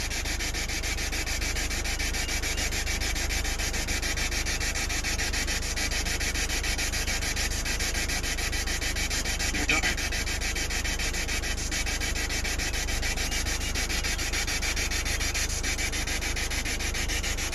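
Steady chorus of insects in the summer trees, a fast, even pulsing buzz that holds without a break, with one short rising chirp about ten seconds in.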